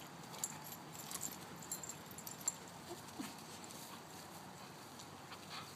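Scattered light clicks, rustles and snaps as a dog leaps at and tugs on a bare tree branch, shaking the twigs. The sharpest clicks fall in the first half.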